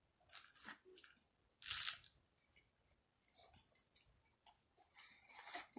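A person chewing and biting food, with scattered soft crunches; the loudest crunch comes about two seconds in.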